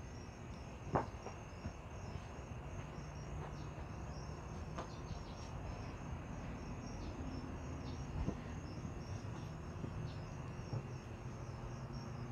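A steady chorus of crickets chirping in rapid pulses, with three sharp knocks about one, five and eight seconds in, the first the loudest.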